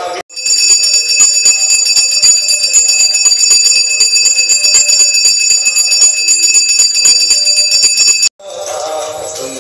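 A metal bell rung rapidly and continuously, its high ringing tones held under the many quick strikes; it cuts in abruptly just after the start and stops abruptly about a second before the end. The ringing is typical of a bell rung during aarti.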